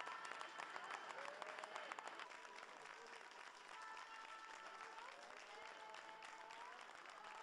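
A crowd clapping in steady applause, with a few long held tones that step up and down in pitch sounding over it.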